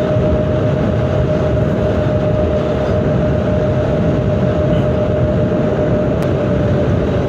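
Wind rushing over the microphone and the Aprilia 150 scooter's engine running steadily at highway cruising speed, about 105 km/h, with one steady whine held under the rush.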